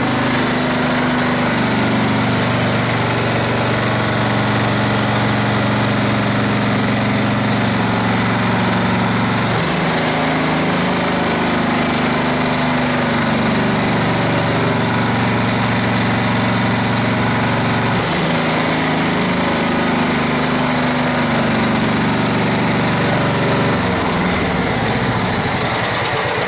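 Kohler 16 hp OHV riding-mower engine running steadily without surging, its throttle held open by a tightened set screw so that it can no longer drop to a low idle. Its note shifts abruptly twice and falls away near the end.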